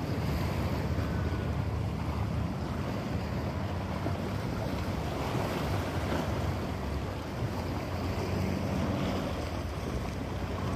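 Wind buffeting the microphone with a steady rumble, over small waves washing against a rock breakwall.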